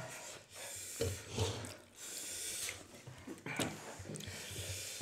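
Faint scattered rubbing and handling rustles with breathy hissing puffs and sniffs, the panting of a mouth burning from very spicy noodles.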